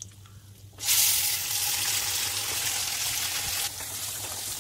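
Wet onion-tomato paste tipped into hot oil in a kadai, starting to sizzle loudly about a second in. The sizzle steps down a little near the end as the paste is stirred with a spatula.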